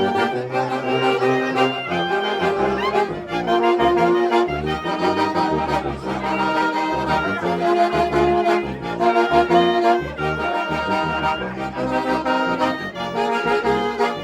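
A brass and wind ensemble, led by trombones and trumpets, plays a hymn in full harmony, with sustained chords over a moving bass line.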